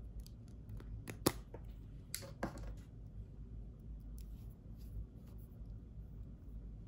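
A lipstick case being handled and opened: two sharp clicks about a second in, a short sliding scrape a little after two seconds as the cap comes off the tube, then a few light ticks as the lipstick is twisted up.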